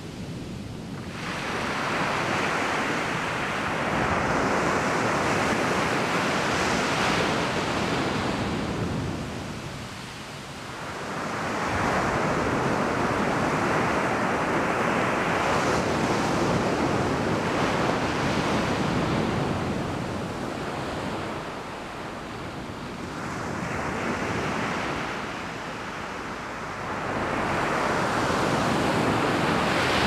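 Ocean surf breaking and washing up a sandy beach. The rush of water swells and fades in four long surges.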